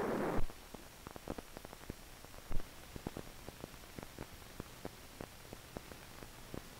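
A steady noisy drone cuts off abruptly about half a second in. After it comes only the faint hiss of an old film soundtrack, with scattered clicks and pops, one louder pop about two and a half seconds in.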